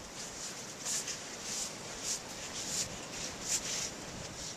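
Footsteps crunching through deep snow, an uneven run of soft scratchy crunches about one to two a second.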